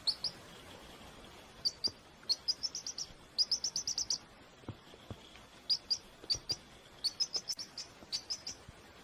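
Chick peeping: short high chirps, some single and some in quick runs of about six a second.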